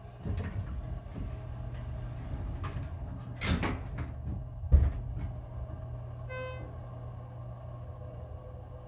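Hydraulic elevator (Schindler-modernized) with center-opening doors: the doors shut with a few knocks, the loudest almost five seconds in, and the car then travels down with a steady low hum. About six seconds in, a single electronic chime sounds.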